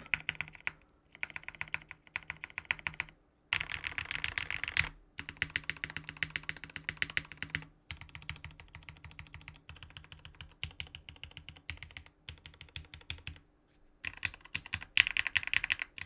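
Typing on a Kaze TKL custom mechanical keyboard with lubed, filmed linear switches, a polycarbonate plate and PBT keycaps. The keystrokes come in runs with short pauses, and two faster, louder flurries fall about four seconds in and a second before the end.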